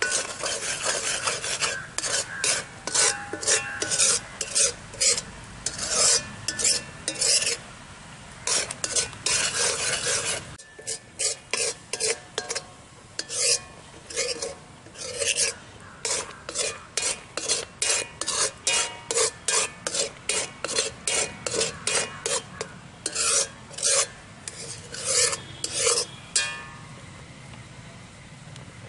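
Metal spoon scraping and stirring thick, reducing milk (palkova) around the bottom of a heavy iron kadai in repeated strokes, about two a second, with a brief break about ten seconds in. The stirring is kept up without stopping at this last stage so the thickening milk does not stick to the pan and burn.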